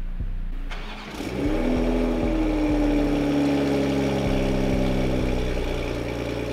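Toyota GR Supra (MK5) engine starting about a second in, flaring up in revs and settling into a steady fast idle.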